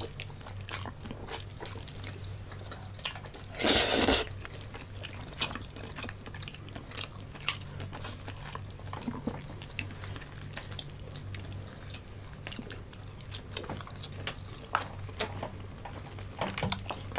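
Close-miked eating sounds: wet chewing and lip-smacking, heard as many small clicks, with one louder half-second burst of noise about four seconds in. A steady low hum runs underneath.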